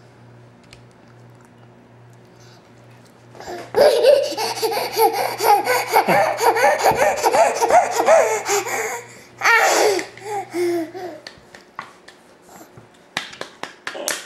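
A toddler laughing hard: a long, high-pitched fit of laughter starts about four seconds in, then a shorter burst after a brief pause. A few hand claps near the end.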